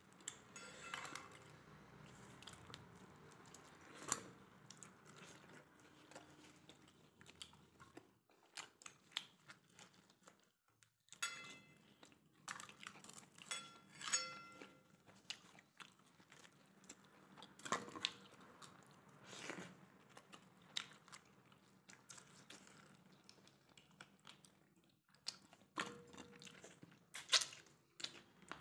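A person eating roti and chicken curry by hand, close to the microphone: faint chewing and biting with irregular crunches and mouth clicks, a few louder crunches scattered through.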